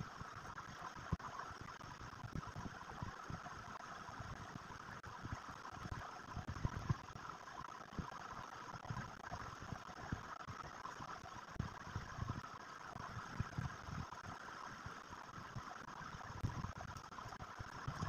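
Chalk drawing on a blackboard: soft, irregular knocks from chalk strokes over a steady background hiss.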